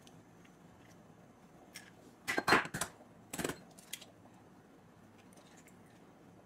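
Hen's eggs being cracked and their shells pulled apart by hand to separate yolks from whites: a few sharp cracks and taps between about two and four seconds in, the loudest about two and a half seconds in, with quiet between.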